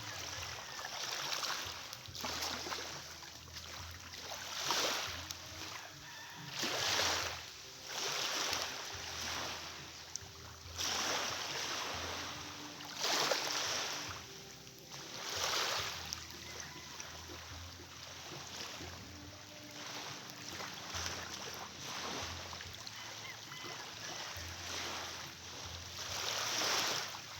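Sea water washing and splashing, with irregular louder surges every few seconds as waves break and wash.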